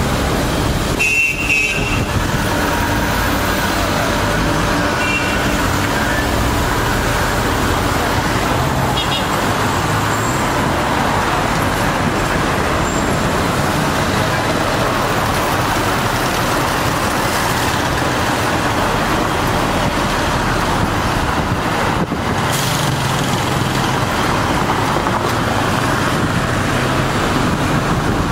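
Steady, loud city road traffic, with a few short horn toots: about a second in, and again around five and nine seconds.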